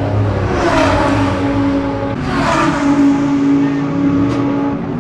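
Race car engines in the pit lane. Two cars go by, the first about a second in and the second about two and a half seconds in, with the engine note swelling and falling away each time. A steady engine drone follows until near the end.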